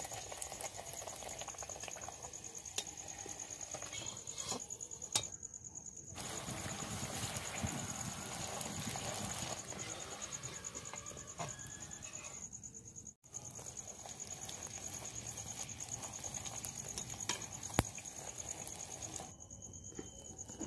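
Fuchka puris frying in hot oil in a karahi: a low sizzle with a few light clicks, over a steady high-pitched tone.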